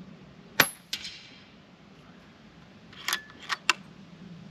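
Moderated Weihrauch HW100 PCP air rifle firing a shot: a sharp crack about half a second in, then a second smaller crack about a third of a second later, the pellet striking the target. Near the end, three or four quick metallic clicks as the action is cycled for the next shot.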